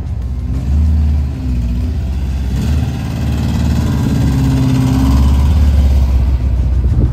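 Air-cooled flat-four engine of a split-window Volkswagen bus running, its revs rising and falling a few times.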